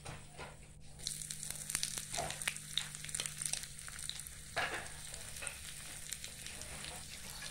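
Chopped onions sizzling in hot oil in a miniature clay pot, a fine crackling fizz that starts about a second in.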